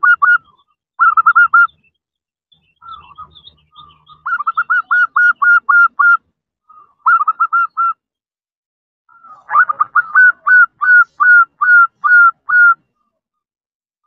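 Female zebra dove (perkutut) calling: rapid runs of repeated coo notes in several bursts, the longest near the end slowing as it goes. This is the call a female gives to summon a male.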